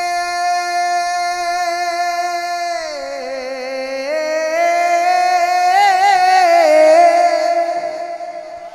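A man's singing voice in a Punjabi naat, with no instruments, holding one long high note. About three seconds in it glides down, then winds through wavering melismatic turns before fading near the end.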